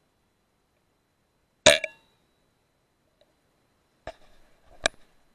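.22 PCP air rifle shot: one sharp crack with a short ringing tail, about a second and a half in. About two and a half seconds later come two smaller clicks, under a second apart.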